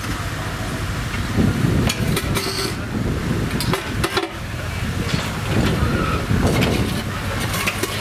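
JCB 8014 CTS mini excavator's small diesel engine running steadily, with gravel crunching and scraping now and then as its bucket digs.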